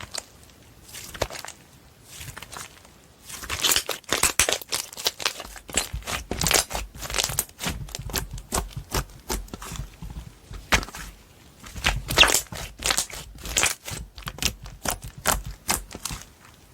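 Slime being squeezed and pressed by hand, giving rapid wet crackling clicks and pops. It starts after a few quieter seconds with only scattered clicks.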